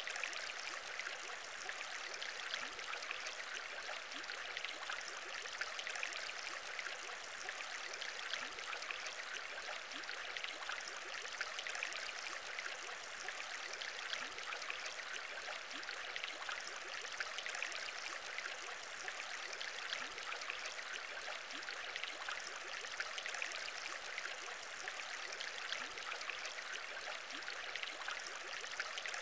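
Aquarium bubbles: a steady bubbling and trickling of water, dense with tiny pops, that never changes.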